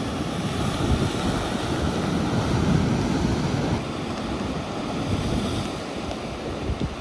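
Atlantic surf washing and breaking against rocks at the foot of sea cliffs, with wind buffeting the microphone; it eases a little about four seconds in.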